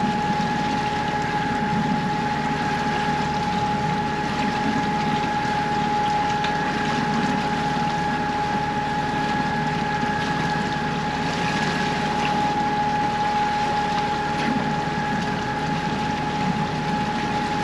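Sailboat's inboard diesel engine running steadily under way, a constant drone with a steady high whine over it.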